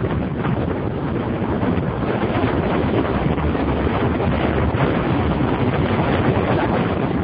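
Steady wind rushing over the microphone of a motorcycle riding at speed, with the bike's engine and tyre noise blended in underneath rather than standing out.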